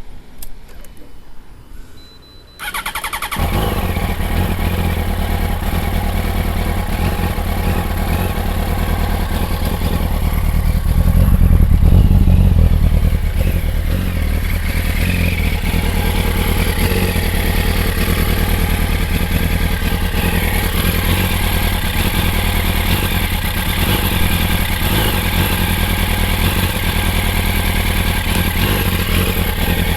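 Yamaha YZF-R1 inline-four engine starting about two and a half seconds in, running a little louder for a few seconds around the middle, then idling steadily. The bike is in for repair of a running fault at idle and low speed.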